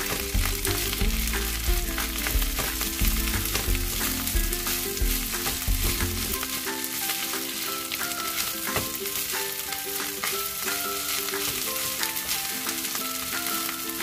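Rice and diced turkey bacon sizzling steadily in a hot frying pan, with a wooden spoon stirring and scraping through it against the pan.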